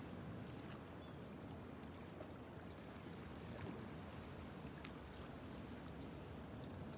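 Faint, steady shoreline ambience: small waves lapping against the rocks over a low, even rumble, with a few faint ticks.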